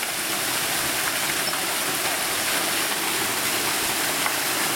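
Water gushing from a hollowed-log flume onto the spinning paddle wheel of a marble ball mill (Kugelmühle), splashing steadily into its stone basin.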